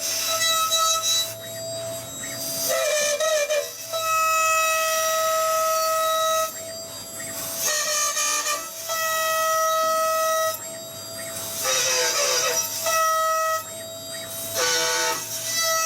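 Background music: long held notes of about two seconds each, alternating with short noisy passages.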